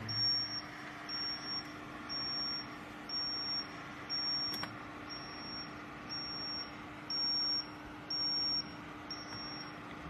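Egg incubator's electronic alarm beeping, a high beep of about half a second repeating roughly once a second, over the steady hum of its fan. The alarm goes off with the incubator lid open, as the temperature inside falls.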